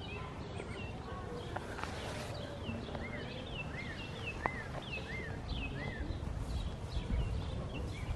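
Small birds chirping over and over in short high notes, some rising and falling, some sliding down, over a low rumble of wind on the microphone.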